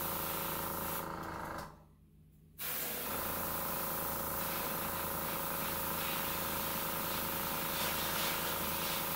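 Air compressor running with a steady hum, under the hiss of an airbrush spraying paint. The sound cuts out for about a second around two seconds in, then comes back.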